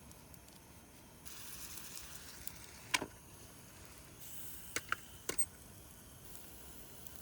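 Gyoza frying in a Bawloo hot sandwich maker: faint bursts of sizzling, with a sharp click about three seconds in and a quick run of clicks and clacks near the five-second mark.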